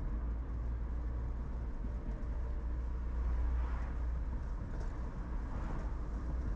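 Car driving along a road, heard from inside the cabin: a steady low rumble of engine and tyres, swelling a little louder about halfway through.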